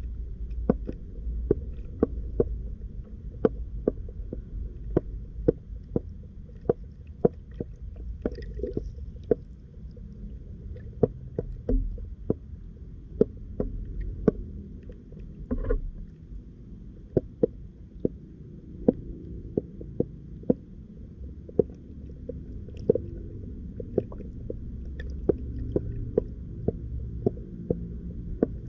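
Underwater sound picked up by a submerged camera in a ditch: a steady low rumble of water with sharp clicks about once or twice a second.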